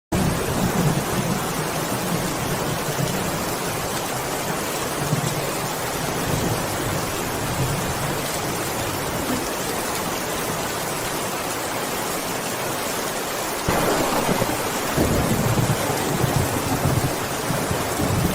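Heavy rain pouring steadily, growing louder with a low rumble about three-quarters of the way through.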